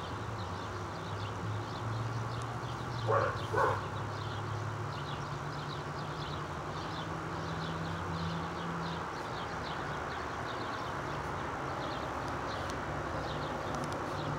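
A dog barking twice in quick succession about three seconds in, over a steady low hum.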